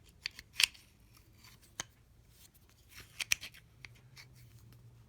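Steel pliers being handled and worked open and shut, giving a handful of sharp metal clicks and clacks. The loudest come about half a second in and around three seconds in.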